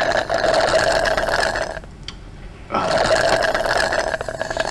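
Long, loud slurp of a soft drink sucked up through a straw from a paper cup, in two long pulls with a short break about two seconds in.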